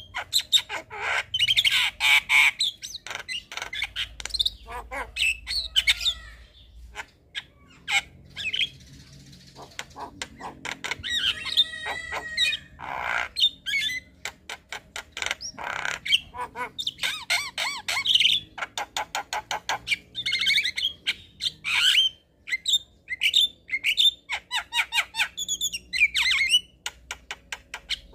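Javan mynas calling: a busy stream of harsh squawks, chattering clicks and whistled chirps following each other in quick succession.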